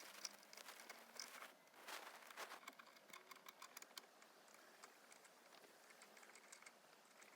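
Near silence with faint, irregular clicks and rustles, most of them in the first two and a half seconds: hand tools and parts being handled while the quick release is bolted onto the steering-wheel hub adapter.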